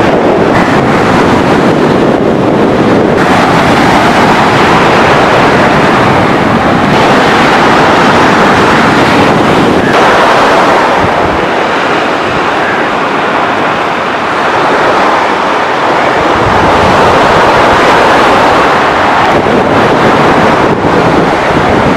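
Surf breaking on a sandy shore, with strong wind buffeting the microphone, a loud steady rush that eases slightly partway through.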